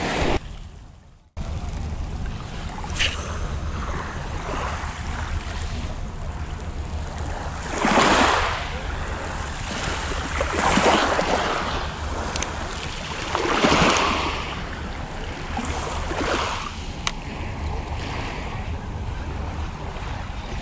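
Small waves washing onto a pebble beach, each wash swelling and fading every few seconds, four times, over a steady low rumble.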